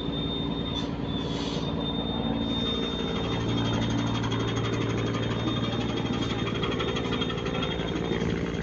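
Cargo ship's diesel engine running steadily with a fast, even pulse; a deeper hum joins about three seconds in.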